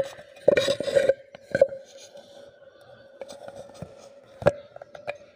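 Handling noise of a phone being fitted into place beside a kitchen tap: a cluster of rubbing, clattering knocks about half a second in, then a few sharp clicks, over a steady faint hum.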